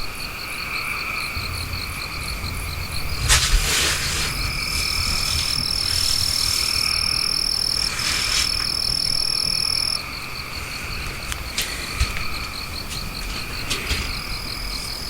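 Steady chorus of croaking and rapid chirping, like frogs and insects calling together. A high thin whine switches on and off several times, and there are a couple of brief noisy swishes, the loudest about three and a half seconds in.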